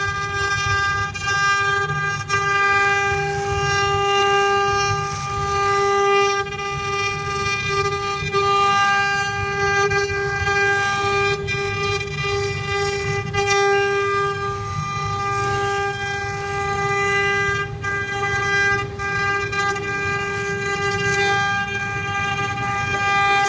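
CNC wood-carving router's spindle running with a steady high whine, its pitch holding level, over a low rumble and faint irregular ticks.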